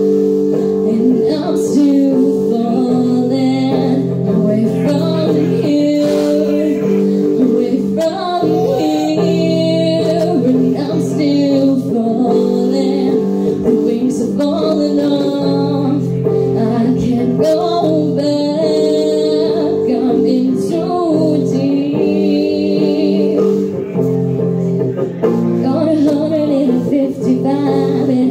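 Live rock band playing a cover through a bar PA: electric guitar, bass and drums holding steady chords, with a woman singing over them.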